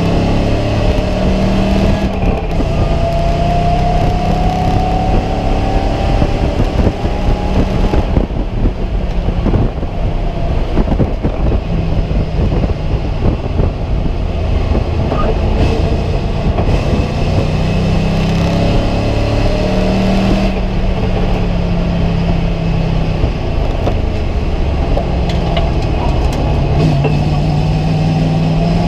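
Race car's engine heard from inside the stripped, roll-caged cabin, running hard on track. Its pitch climbs in long pulls through the gears, with a rougher, uneven stretch in the middle.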